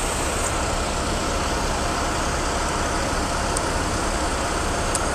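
Heavy diesel tow trucks idling, a steady, unchanging engine rumble.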